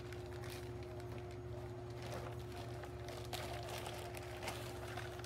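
Clear plastic wrapping crinkling in irregular bursts as long fins are pulled out of it, over a steady low hum.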